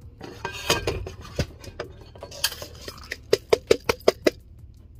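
Knocks and clinks of a plastic cup against a small rice cooker's metal inner pot as rinsed rice is tipped into it, ending with a quick run of about six sharp knocks a little after three seconds in.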